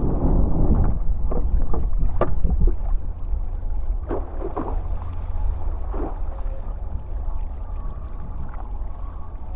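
Wind rumbling on the microphone while a downwind foil board rides ocean swell, with water splashing and hissing in bursts, several in the first three seconds and more at about four and six seconds in.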